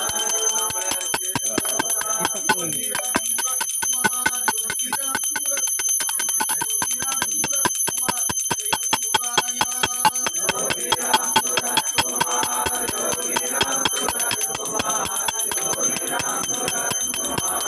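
Brass puja hand bell rung continuously for the offering, its clapper striking rapidly and evenly, about five times a second, over a sustained high ringing.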